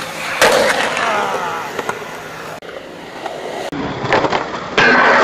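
Skateboard tricks on concrete: a loud slam of the board landing about half a second in, wheels rolling on concrete, and a loud harsh grind or scrape near the end.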